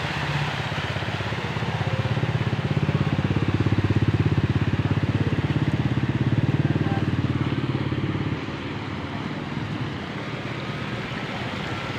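Motorcycle engine running close by as it rides through floodwater, growing louder to a peak around the middle and dropping off suddenly about eight seconds in.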